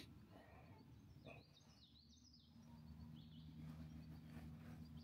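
Near silence outdoors: faint, quick bird chirps high in pitch, with a faint low steady hum coming in about halfway through.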